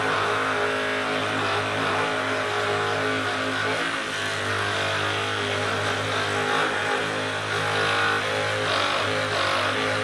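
Hypervolt percussive massage gun running with a steady motor buzz, its head pressed into the muscles of the upper back and shoulders.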